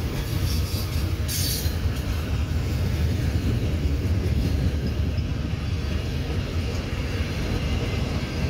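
Freight train of covered hoppers and tank cars rolling past: a steady low rumble of steel wheels on rail, with a brief high hiss about a second and a half in.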